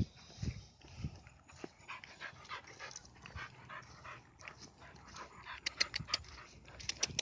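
Dog panting in a quick, regular rhythm, with a few sharp clicks near the end.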